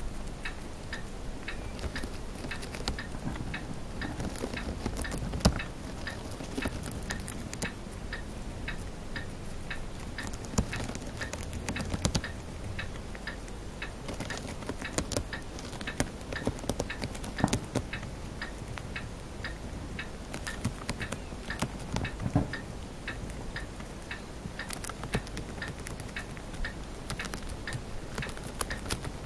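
Chinese dwarf hamster nibbling a leafy green, with quick small crunching and rustling clicks as it chews, over a faint steady ticking that keeps an even beat of about two ticks a second.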